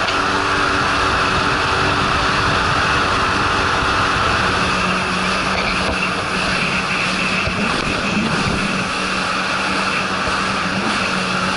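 Jet ski (personal watercraft) engine running steadily at speed, with water spray rushing alongside.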